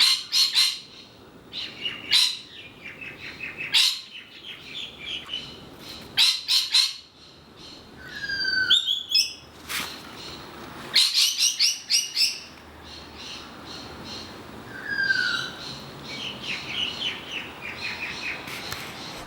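Several birds calling in a mix: loud harsh calls in short clusters every few seconds, runs of quick repeated notes, and a short falling whistle twice, about eight and fifteen seconds in.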